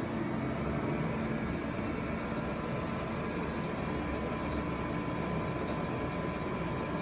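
Steady machinery hum with faint steady tones over an even noise, unchanging throughout.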